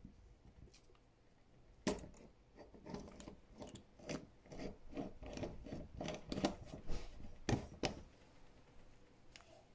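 Small clicks and plastic-bag crinkling as a steel watch case is handled in a bench press, wrapped in a clear plastic bag. The sharpest clicks come about two seconds in and again near the end.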